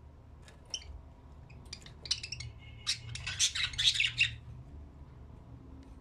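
Budgerigars chirping and chattering: a few scattered chirps, then a quick, dense flurry of chirps about two to four seconds in, dying away near the end.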